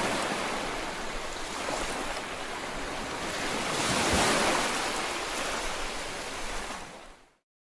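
Steady rushing noise, like surf or wind, swelling about four seconds in, then fading and cutting off to silence near the end.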